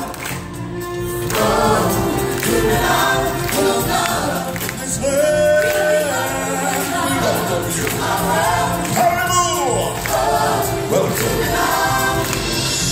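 A group of stage singers singing together over backing music, with choir-like voices, in a large, echoing theatre.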